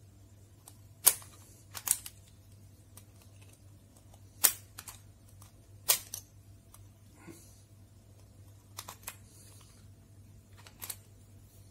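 Spring-loaded automatic center punch snapping as it is pushed against the metal E27 screw base of an LED bulb, dimpling the base to lock it onto the bulb housing. There are several sharp snaps a few seconds apart, the loudest about a second in and around four and a half and six seconds.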